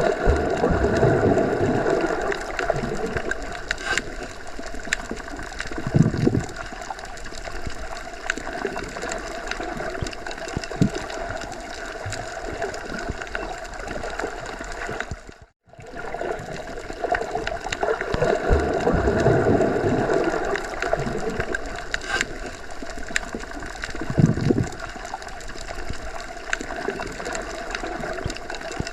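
Underwater ambience: a steady wash of water with slow low surges, dropping out for a moment about halfway through.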